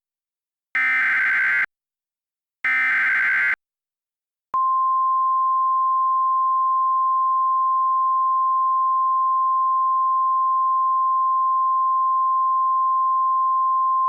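Emergency Alert System SAME header: two short, buzzy data bursts, each just under a second long, about two seconds apart. About four and a half seconds in, a single steady pure tone starts: the NOAA Weather Radio 1050 Hz alert tone that announces an incoming warning.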